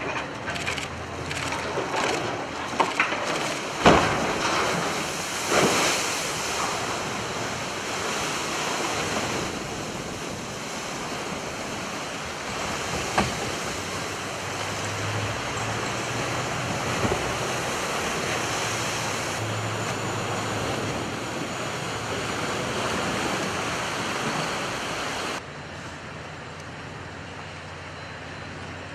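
Cargo ship side-launched into a canal: a few sharp knocks and cracks in the first seconds as the hull goes off the ways, then the steady rush and slosh of churned water and waves. The water noise cuts off abruptly near the end, leaving a quieter steady background.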